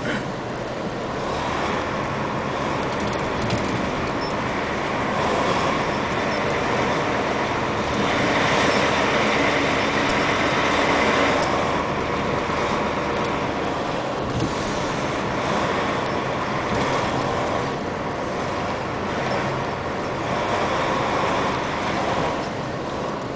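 Steady road and engine noise from a moving vehicle as a line of oncoming heavy dump trucks passes close by. The noise swells several times as trucks go past, loudest about a third of the way in.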